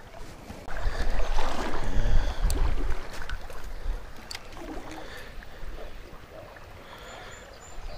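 Wind buffeting the microphone in a gust for the first few seconds, then easing to the steady wash of the shallow stream. A couple of light clicks come through.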